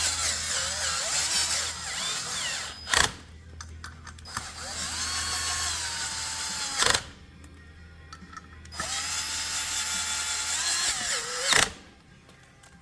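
Power drill driving the Loctited sprocket bolts down into a motorcycle's rear sprocket hub. It makes three runs of a few seconds each, the motor's whine sliding up and down in pitch, and each run ends with a sharp stop as a bolt seats.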